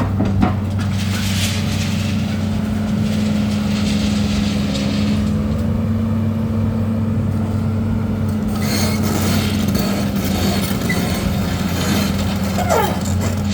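Excavator's diesel engine running steadily during loading work, with a short knock about half a second in and two long stretches of higher hissing noise over the engine, one about a second in and another from about nine seconds.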